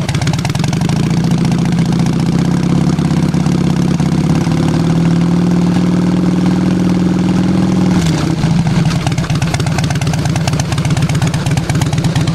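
V-twin motorcycle engine running through true dual crossover exhaust pipes with long fishtail slip-on tips. The exhaust note climbs slowly under a held throttle, then drops back to idle about eight seconds in.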